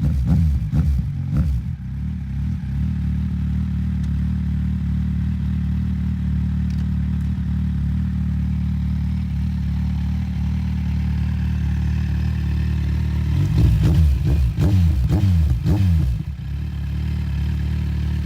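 2007 Kawasaki Z1000 inline-four engine idling through DANMOTO Carbon GP aftermarket mufflers, deep and steady. There are a few quick throttle blips at the start and a burst of several sharp revs about three-quarters of the way through before it settles back to idle.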